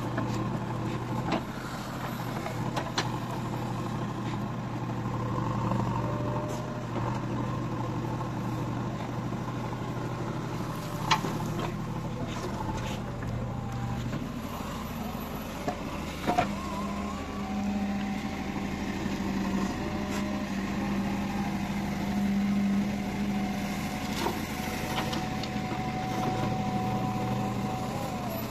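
JCB 3DX backhoe loader's diesel engine running steadily at work, with a few sharp knocks. About halfway through, the engine note steps up to a higher pitch and holds there.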